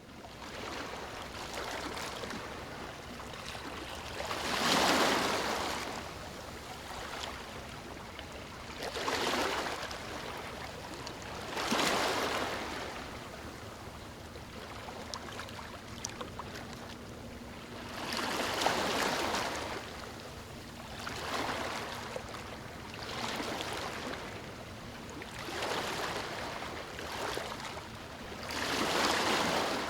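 Small, calm waves washing onto a sandy beach, a steady hiss of surf with a wave breaking and rushing up the sand every few seconds.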